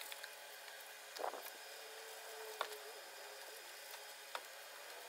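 Quiet room tone with a faint steady hiss and a few small, scattered clicks and soft knocks.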